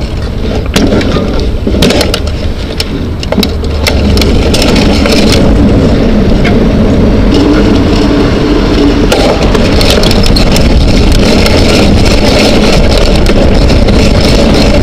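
Bicycle rolling on pavement, heard from a camera on its front fork: tyre rumble and wind rushing over the microphone. Sharp knocks and rattles come in the first few seconds as the bike goes over rough ground, then the rush settles and grows steadier.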